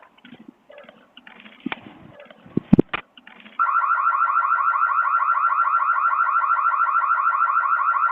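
A few knocks and two heavy thumps, then an electronic alarm tone comes on suddenly, pulsing rapidly and steadily, far louder than the thumps.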